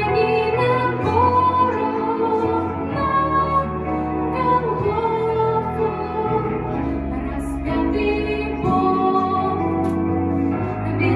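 Slow music from a Christian song: sustained chords over a bass line with a melody moving from note to note.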